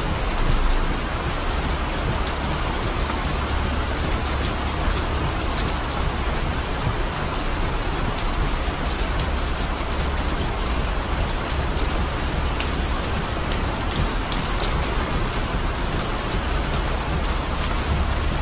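Torrential rain hitting a car's roof and windshield, heard from inside the car as a dense, steady hiss with countless sharp drop hits over a constant low rumble.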